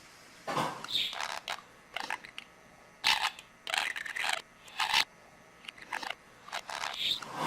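Pet budgerigar chattering in a series of short, scratchy high-pitched bursts and clicks with brief pauses between them.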